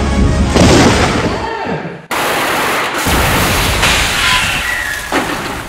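A dramatic music cue ends on a heavy hit and a falling swoop, then after a brief drop-out about two seconds in, film sound effects of explosions and gunfire take over, loud and dense, with vehicles blasted into the air.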